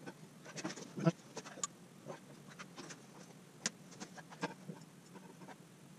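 Scattered light clicks and knocks of metal parts as the boring bar of a Clark deep hollowing system is handled and shifted on its rod and supports.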